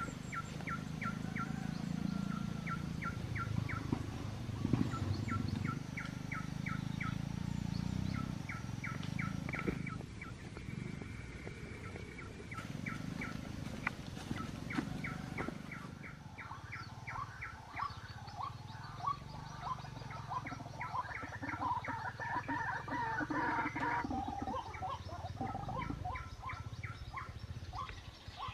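White-breasted waterhen calling: quick runs of short, sharp call notes repeated every second or two, becoming denser and more varied after about eighteen seconds.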